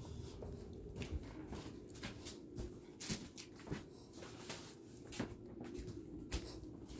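Walking and handling noise: irregular soft knocks and rustles from footsteps and a handheld phone moving through small rooms, over a low room rumble.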